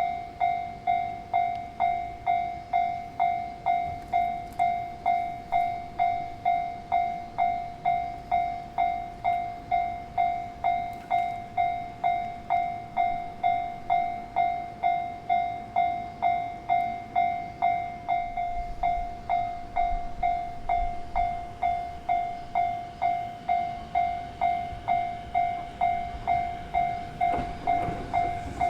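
Japanese level-crossing warning bell ringing its electronic 'kan-kan' alarm, about two strikes a second, as a train approaches. Near the end the approaching train starts to be heard under the bell.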